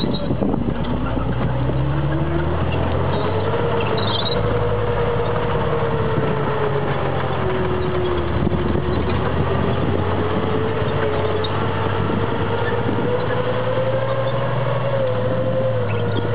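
Centurion tank's Rolls-Royce Meteor V12 engine running as the tank drives by on its tracks. A whine climbs in pitch over the first few seconds, sags a little about halfway, then rises again.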